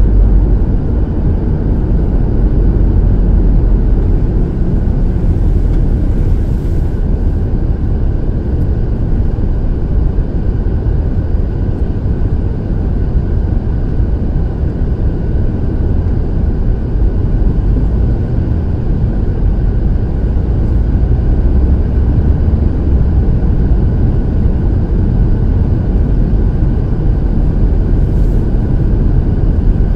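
Steady low rumble of a car driving on a snow-packed road, engine and tyre noise heard from inside the cabin.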